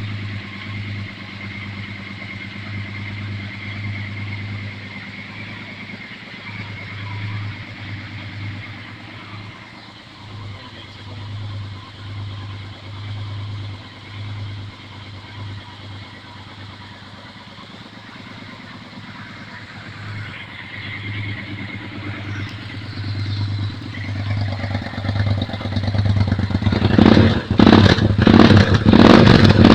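Yamaha Super Ténéré parallel-twin engine with a Two Brothers aftermarket exhaust, idling steadily. Near the end it is revved in repeated sharp blips and gets much louder.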